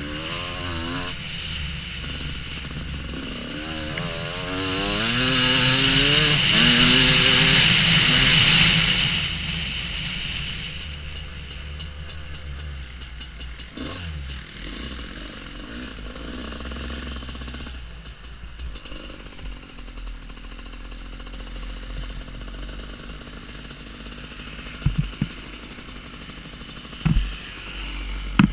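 Husqvarna WR250 two-stroke enduro motorcycle engine revving up and down, loudest for a few seconds as the revs peak. It then settles to a lower, steady running, with a few short knocks near the end.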